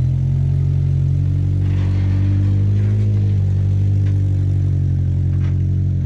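Off-road 4x4's engine running steadily at low revs while crawling, its pitch rising and falling slightly, with a few faint knocks.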